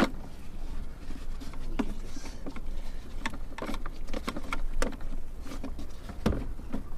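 Irregular clicks and light knocks of the Ford Focus RS airbox being handled and fitted back into the engine bay, with its wiring being checked, over a steady low rumble.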